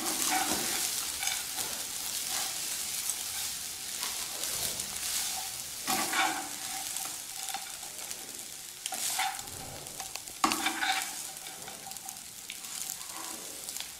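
Boiled rice being stirred and tossed with a spatula in a hot frying pan, mixing it with the tempering for lemon rice: a steady sizzle with a few louder scraping strokes of the spatula against the pan.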